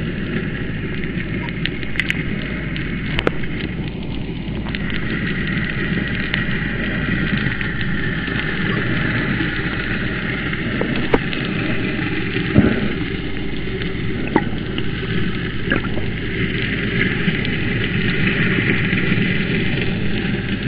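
Underwater ambience picked up by a submerged camera: a steady muffled rumble and hiss, with a few sharp clicks scattered through it.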